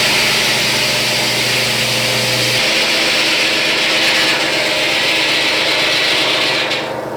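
Engine-driven banana-trunk slicer running: a steady rasping shred over the hum of its motor. The shredding stops near the end while the motor keeps running.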